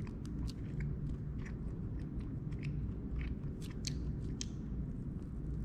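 Soft beef jerky strips being chewed and pulled apart by hand: scattered small moist clicks and crackles, irregular throughout.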